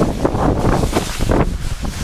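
Wind buffeting the microphone of a handheld camera carried by a moving snowboarder, mixed with the snowboard scraping over the snow in uneven surges.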